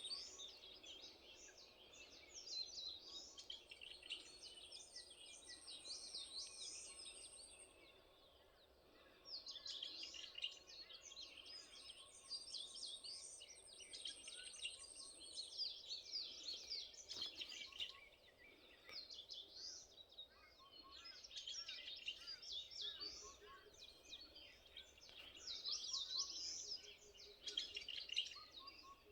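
A chorus of many small birds chirping and twittering at once at dawn, dense and overlapping, swelling and easing in waves with a brief lull about eight seconds in. At times a thin, high, steady trill runs above the chatter.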